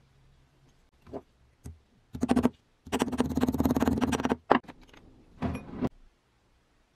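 Small sheet-metal parts handled on an anvil and wooden workbench: a few light knocks, then about a second and a half of fast scraping and rattling, and a short clatter near the end.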